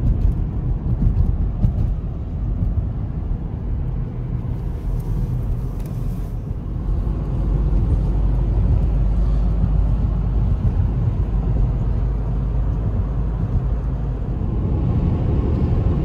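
Inside the cabin of a moving Opel car: a steady low rumble of tyre and engine noise from highway driving, a little louder from about seven seconds in.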